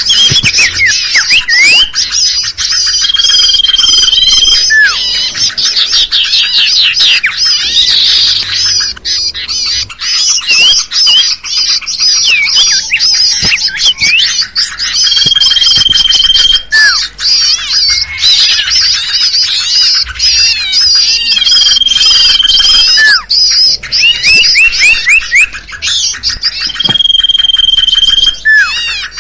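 Bird-lure recording for common ioras (cipoh/sirtu): a dense, unbroken chorus of small songbirds chirping and chattering, with a long flat whistle heard four times and a few short falling notes.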